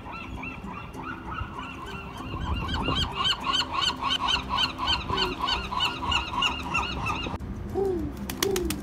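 Gulls calling in a long, fast series of yelping notes, about three a second. Near the end the calls stop abruptly and pigeons coo low.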